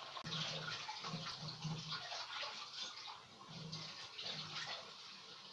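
Oil-greased hands pinching soft gulab jamun dough from a plastic bowl and rolling it into a small ball between the palms, a faint, irregular, sticky handling sound.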